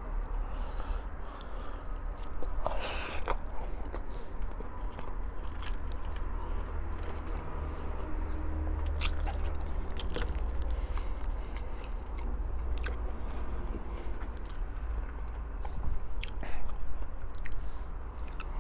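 A person chewing and biting food close to the microphone, with scattered small clicks, over a steady low hum.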